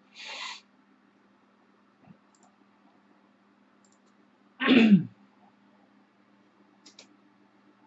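A person's short breath, then about four and a half seconds in a loud, brief vocal burst that falls in pitch, like a sneeze or a sigh, with a few faint clicks and a steady low hum underneath.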